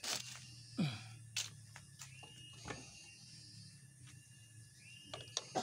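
Scattered light metal clicks and scrapes of hand pliers working at the shaft of an open scooter CVT case, with a brief falling squeal about a second in and a low steady hum underneath.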